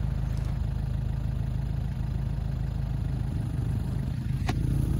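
Farm vehicle's engine running steadily at low revs, heard from on board. A single sharp click comes near the end, after which the engine note rises slightly.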